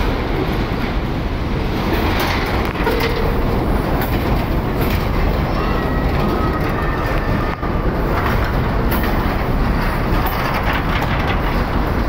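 A long train of open-top freight wagons rolling past close by: a steady, loud rumble of wheels on the rails, with the clatter of wheels running over the rail joints.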